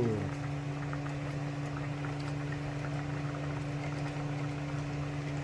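Steady low mechanical hum, such as a motor or appliance running, with a few faint ticks.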